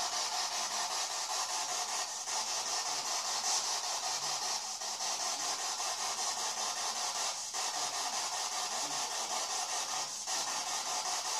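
Steady hissing static that dips briefly about every two and a half to three seconds.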